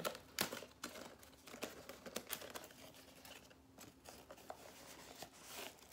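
Logitech G102 mouse packaging being opened and handled: rustling, crinkling and tearing with scattered clicks as the box flap is lifted and the inner tray pulled out, and a sharp snap about half a second in.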